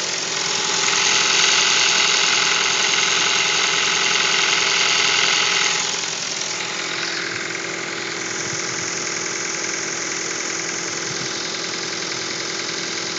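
2012 Hyundai i30 engine idling cold with a knock, which the owner posts as a cold-engine knock. About halfway through the sound drops in level and turns duller, then runs on steadily.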